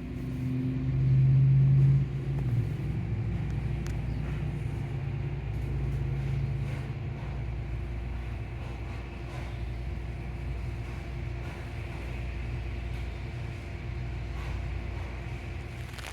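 A steady low mechanical hum and rumble with a few held tones, swelling louder for about a second near the start.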